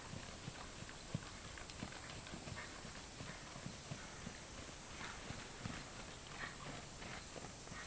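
Hooves of a bay mare trotting on sand footing: faint, soft, regular hoofbeats, about two to three a second.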